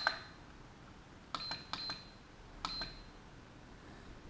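IMAX B6 LiPo balance charger beeping as its front buttons are pressed: four short, high beeps, each with a button click, as the charge current is set down to 2.2 A.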